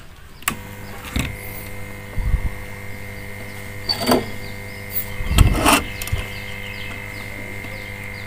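A steady electrical hum switches on about half a second in and keeps going. Several sharp clicks and taps from handling a thin wire on a circuit board sit on top of it.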